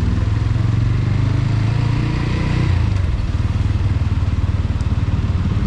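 TVS Apache RTR 200 4V's single-cylinder engine running on the move, heard from on board. Its note holds steady, then drops about halfway through.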